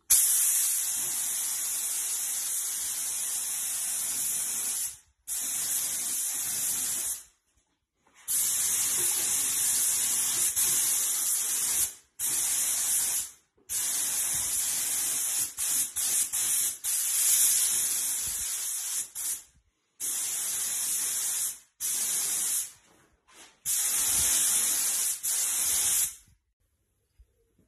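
Compressed-air paint spray gun hissing as it sprays paint onto a steel bike frame. The hiss comes in stretches of one to several seconds, stopping and starting abruptly a dozen or so times, and stops for good a little before the end.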